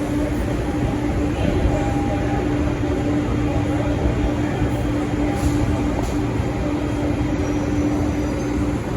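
SuperVia electric commuter train running at the platform: a steady rumble with a constant hum.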